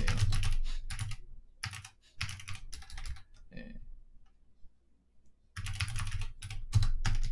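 Typing on a computer keyboard: quick runs of keystrokes, a pause of about two seconds in the middle, then another run near the end.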